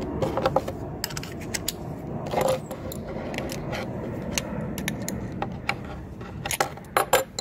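Small metal parts clicking and clinking as a flap sanding disc is fitted onto its arbor and a nut and washer are threaded on by hand. Scattered sharp clicks, busiest near the start, around the middle and near the end.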